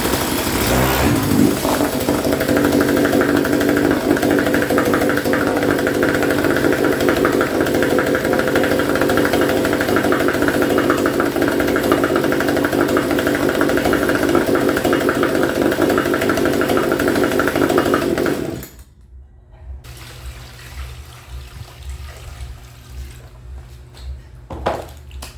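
Hangkai 3.5 hp outboard motor running steadily, then cutting out abruptly about 18 seconds in. A few faint knocks follow.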